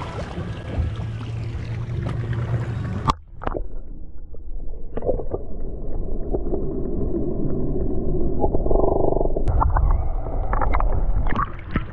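Boat engine hum and wind on the microphone, then about three seconds in the microphone goes underwater and the sound turns muffled: a low underwater rumble with gurgling and scattered sharp clicks.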